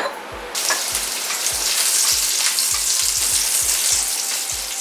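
Frying sizzle that starts suddenly about half a second in, laid over a steady electronic kick-drum beat in a channel intro jingle.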